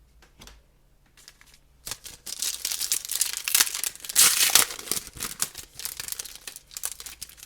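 Hockey card pack wrapper being torn open and crinkled: a crackling rustle that starts about two seconds in, is loudest around the middle, then goes on in smaller crinkles.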